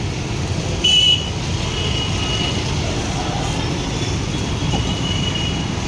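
Steady street traffic rumble, with a short, louder high-pitched tone about a second in and a fainter one near the end.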